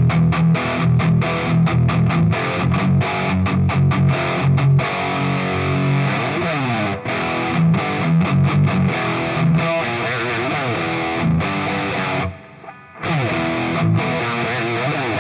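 Distorted electric guitar played through an M-Vave Tank-G pedal running a captured Soldano SLO amp with no boost and the Tank-G's factory cabinet IR. A rhythmic low riff for the first five seconds, then looser single notes and chords, with a brief stop about twelve seconds in.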